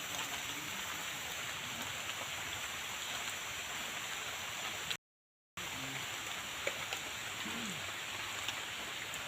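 Steady rain falling, an even hiss. It cuts out completely for about half a second a little past halfway.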